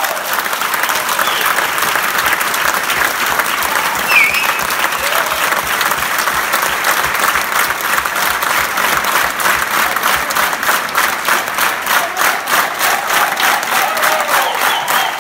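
Crowd applause from a theatre audience and performers, loud and dense, settling about ten seconds in into rhythmic clapping in unison, roughly three claps a second.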